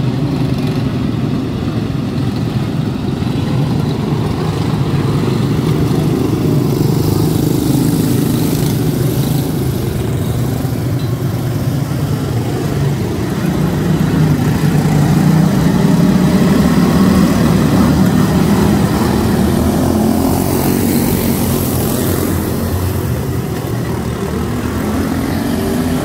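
Several quarter midget race cars with single-cylinder Briggs & Stratton Animal engines running together around a small oval in a steady, buzzing drone. The drone swells as the pack passes close by about halfway through.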